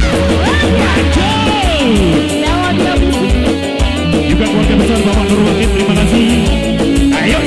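Live band music: a melody line sliding up and down over keyboard, bass and hand drums keeping a steady beat.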